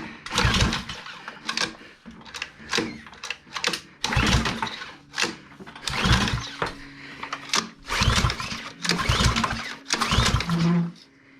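Small Ryobi pressure-washer engine being pull-started over and over, the engine turning over in a burst with each pull of the recoil starter, about eight pulls, while its choke sits fitted the wrong way round. A faint steady hum joins about halfway through.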